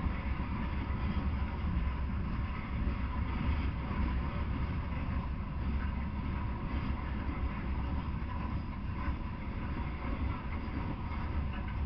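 Loaded coal hopper cars of a Norfolk Southern freight train rolling past, a steady low rumble of wheels on the rails.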